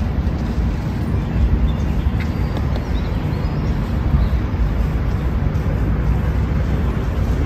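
Steady outdoor city ambience on a harbour promenade: an even low rumble throughout, with a few faint, brief higher sounds.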